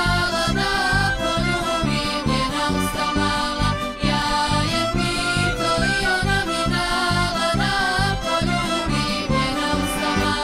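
Lively Serbian folk dance music for a kolo, played by a folk orchestra with accordion lead over a steady, quick bass beat.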